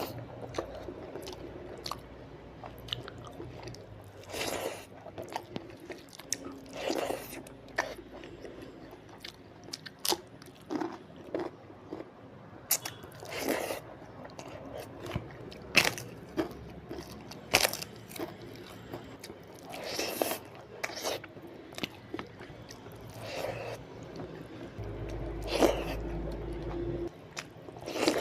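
Close-miked chewing and crunching as a person eats vegetable bhaji with rice: irregular crisp crunches and wet mouth sounds, with a louder bite every second or two.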